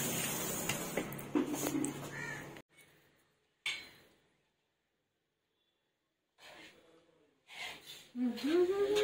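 Serving spoons clinking and scraping on plates over a steady background hum. The sound then drops out to near silence for about five seconds. Near the end a drawn-out vocal tone rises and holds for about two seconds.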